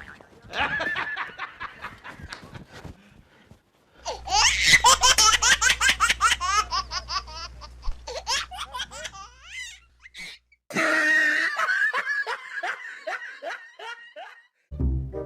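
High-pitched laughter in quick repeated pulses, in three bursts, the longest and loudest in the middle.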